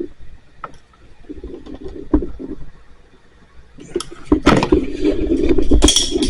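Scattered light clicks, then from about four seconds in louder rustling and scraping handling noise with low thumps.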